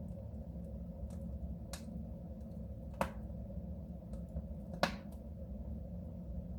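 Wood fire burning in a soapstone stove, crackling with three sharp pops about two, three and five seconds in and fainter ticks between, over a steady low rumble.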